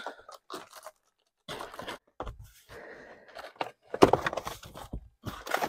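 Plastic packaging bag rustling and crinkling while the cardboard box and its packed contents are handled and rummaged through, with a sharp knock about four seconds in.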